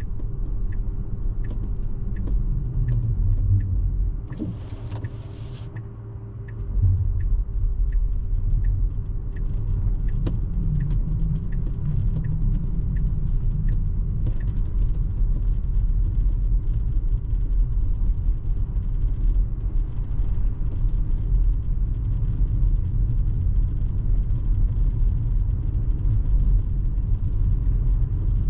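Road and tyre rumble heard inside a Tesla's cabin while driving on snow, with the turn signal ticking steadily about twice a second for a left turn, stopping about halfway through. The rumble dips briefly about five seconds in.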